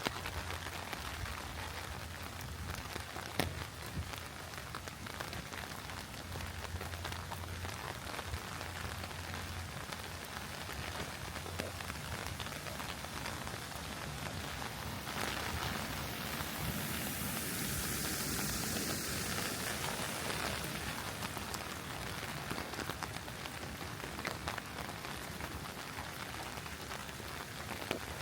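Steady rainfall, a hiss of many drops, swelling to a heavier spell about two-thirds of the way through before settling back.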